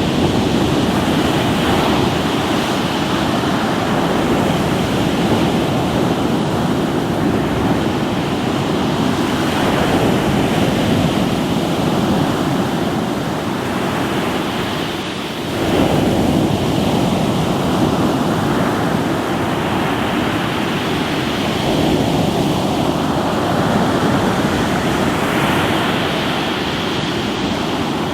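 Surf breaking and washing over a rocky shore, a continuous rush that swells and ebbs, with a new wave surging in about halfway through. Some wind buffets the microphone.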